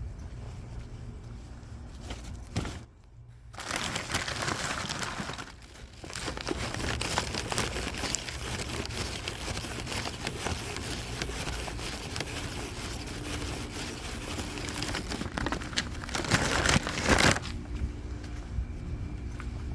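Close crinkling and rustling handling noise. It pauses briefly about three seconds in and is loudest near the end.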